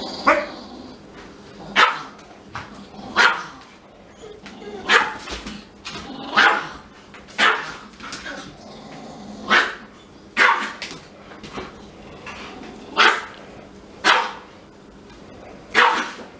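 Dog barking in single sharp barks, about a dozen of them, one every second or two.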